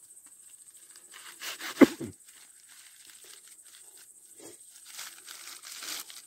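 Aluminium foil crinkling and tearing as it is peeled open by hand, with a sharp knock just under two seconds in.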